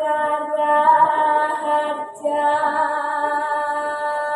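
A teenage girl singing a Javanese macapat verse solo and unaccompanied, drawing out long held notes, with a short break for breath about two seconds in.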